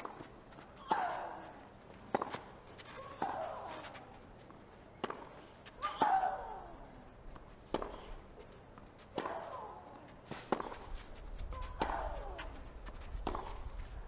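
Tennis ball struck back and forth by rackets in a rally, a sharp knock every second or so. A player grunts on her own shots, about every three seconds, each cry falling in pitch.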